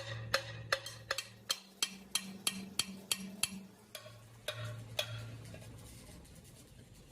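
Background music: a percussive track with a steady wood-block-like tick over low held tones, fading out over the last few seconds.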